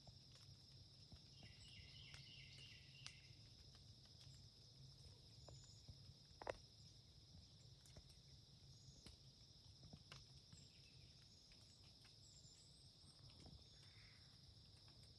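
Near silence with a faint, steady chorus of crickets. A few small clicks are scattered through it, with one sharper click about six and a half seconds in.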